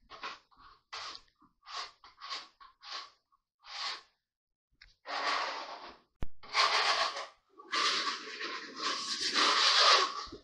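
Hand trowel scraping across a plywood subfloor, spreading vinyl flooring adhesive. There are short strokes about one or two a second at first, then longer, louder strokes from about halfway in.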